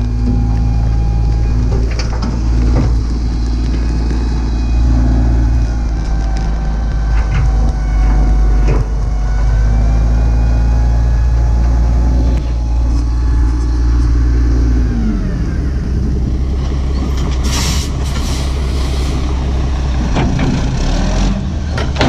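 Dump truck's diesel engine running steadily while the hydraulic hoist raises the bed and the load of clay and rock slides out the tailgate, with scattered knocks from the falling dirt and rock. About two-thirds through, the engine note drops, and a short burst of hiss follows.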